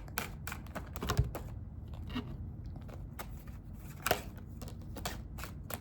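Tarot cards being handled and laid down: a scattering of light, irregular clicks and snaps, with a couple of louder ones about a second in and near four seconds in.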